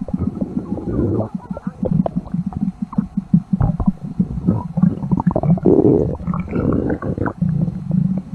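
Stomach growling sound effect: a continuous run of low rumbles broken by many quick wet gurgles, swelling into a louder, fuller growl a little past halfway.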